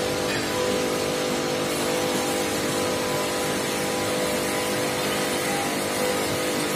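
A machine running steadily with a constant, even hum, and no hammer blows.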